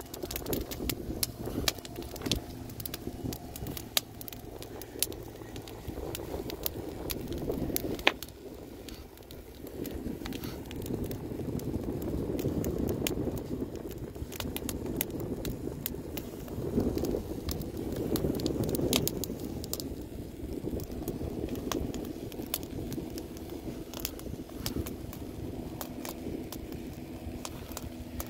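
Wood fire crackling, with irregular sharp pops throughout, over a low rumble that swells and fades. One pop about eight seconds in is the loudest.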